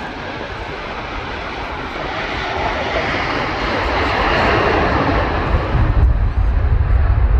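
Jet engines of a Virgin Atlantic Airbus A330-300, Rolls-Royce Trent 700 turbofans, running at take-off power as it departs: a broad rushing roar that swells steadily louder, with a deep rumble building towards the end.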